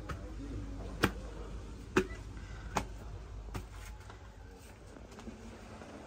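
Footsteps climbing stone steps: four sharp steps a little under a second apart, over a low rumble that eases off about four seconds in.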